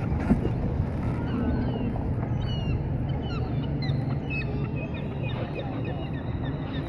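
Pedal boat under way: a steady low rumble of churning water and wind on the microphone, with many short high chirps scattered over it.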